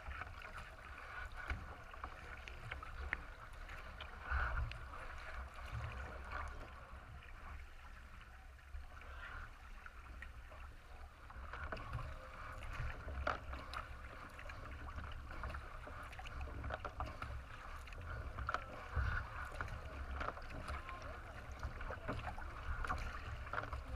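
Water splashing and rushing along the hull of a racing kayak as it is paddled, heard close to the bow, over a steady low rumble with scattered small knocks.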